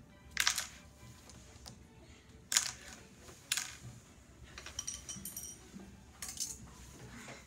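Small wooden Montessori stamp-game tiles clattering as they are gathered off the mat, in about four short bursts.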